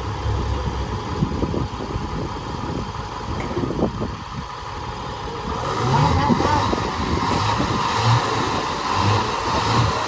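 Diesel engines of a heavily loaded truck stuck in soil and of a backhoe loader pushing it, running steadily and then revving harder and louder from about halfway through.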